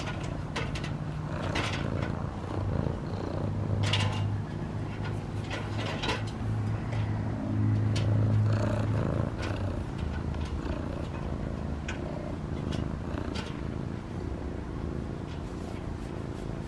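Domestic cat purring steadily while being stroked, the purr loudest through the middle stretch. Scattered brief clicks and rustles sit on top of it.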